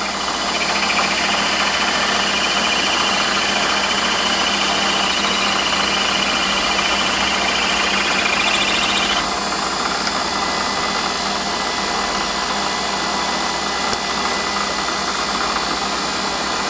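Warco lathe running while a 7 mm twist drill cuts through the workpiece, as the drill nears breaking through the back face. A high, wavering squeal from the cut rises slightly, then stops suddenly about nine seconds in, leaving the lathe's steady running.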